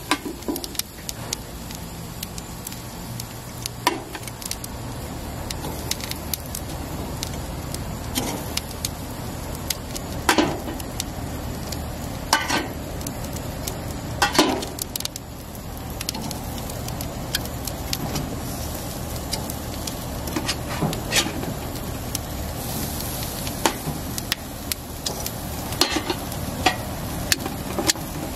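Seasoned vegetable slices (zucchini, squash, peppers) sizzling as they are laid on a hot grill grate, with metal tongs clicking and scraping against a stainless steel pan and the grate. A few louder ringing clinks of tongs on steel stand out among the clicks.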